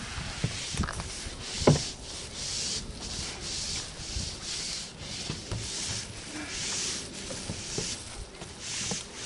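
Long-handled paint rollers swishing in repeated back-and-forth strokes over a roofing sheet laid on OSB decking. A sharp knock stands out about 1.7 seconds in.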